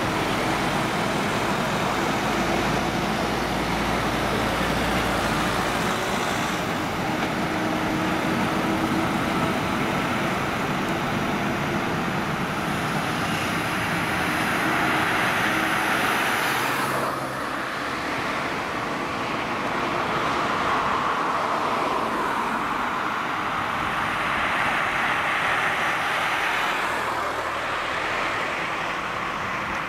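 Heavy-haulage convoy on a street: a truck and a multi-axle vessel-bridge trailer rolling along, steady engine and tyre noise mixed with passing traffic. The sound changes abruptly a little over halfway through.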